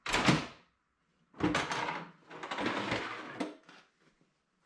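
Dust-collection housing of an iQ MS362 dry-cut masonry saw being handled and opened to check the dust from one cut: a clunk, then about two seconds of scraping and rattling.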